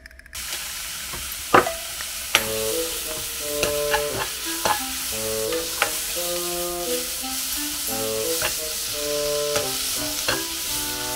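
Beef sizzling as it is stir-fried in a frying pan, with a spatula clicking and scraping against the pan now and then.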